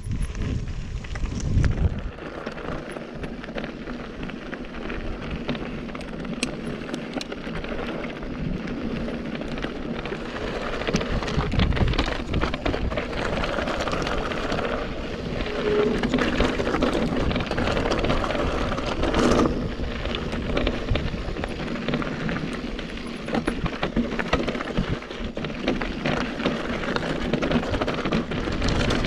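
Mountain bike descending a rocky trail: tyres crunching over loose rock and gravel, with a steady rush of riding noise and frequent clicks and rattles from the bike.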